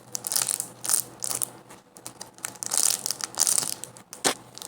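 Handling noise close to the microphone: irregular bursts of crinkling and rustling as things are moved about in the hands, with a sharp click about four seconds in.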